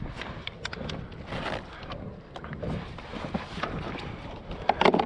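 Strong wind buffeting the microphone in a constant low rumble, with scattered small clicks and slaps and one louder short sound near the end.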